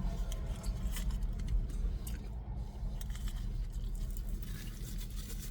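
Scattered rustles and light clicks of food and packaging being handled while eating, over a steady low hum.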